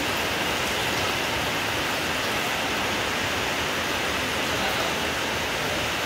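Stahl KC66 buckle-and-knife paper folding machine running, giving a steady, even rushing noise with no distinct beat.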